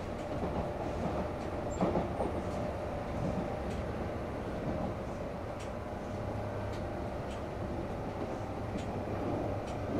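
Kintetsu 5800-series electric train running along the track: a steady rumble of wheels and running gear, with faint clicks now and then.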